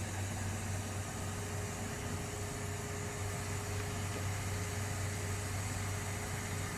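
Steady low machine hum with a faint even tone and hiss, unchanging throughout.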